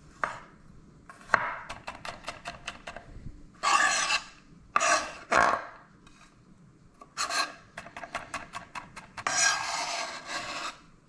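Kitchen knife mincing garlic on a bamboo cutting board: quick runs of sharp chopping knocks on the board, broken by several longer scraping strokes as the blade drags across the wood.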